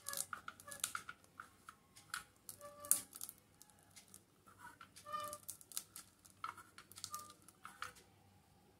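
Hand-held stainless-steel murukku press being worked to squeeze ragi dough into noodles: irregular metal clicks and scrapes with a few short squeaks from the press.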